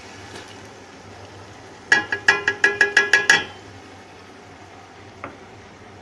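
A metal spoon tapped quickly against a metal cooking pot, about eight ringing clinks in a second and a half, with a single lighter click a couple of seconds later.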